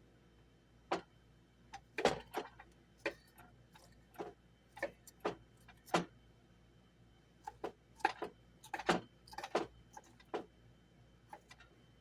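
Irregular clicks and knocks of kitchen utensils and cookware being handled, unevenly spaced and of varying strength, with short pauses between clusters.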